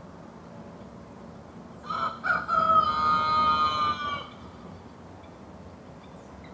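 A rooster crowing once, starting about two seconds in and lasting about two seconds, over faint steady background noise.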